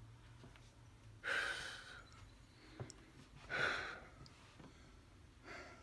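A man breathing out heavily twice, about two seconds apart, winded after a set of pull-ups, with a faint knock between the breaths.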